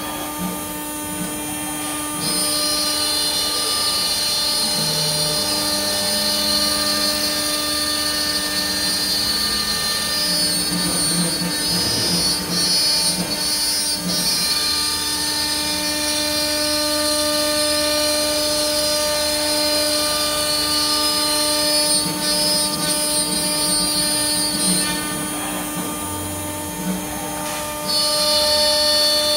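CNC router spindle running at speed and cutting MDF board: a steady mechanical whine made of several high tones over cutting noise, with short low tones that come and go.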